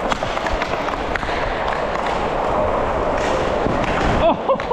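Inline hockey skate wheels rolling over a plastic sport-tile rink floor, a steady rushing noise, with a few sharp clacks of sticks and puck.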